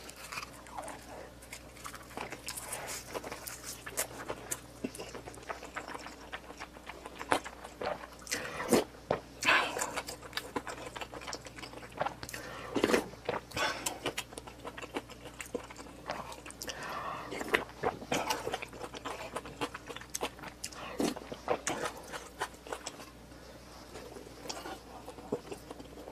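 A person eating close to the microphone: irregular bites and chewing with many sharp, wet clicks, loudest in clusters about a third and half of the way through.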